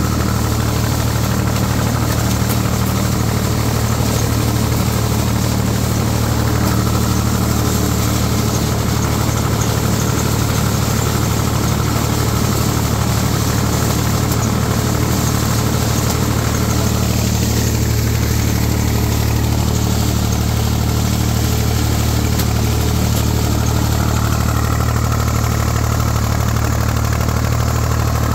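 IMT 549 DV tractor's diesel engine running steadily under load, heard from the driver's seat, as it pulls a SIP Tornado 80 corn picker through the standing crop.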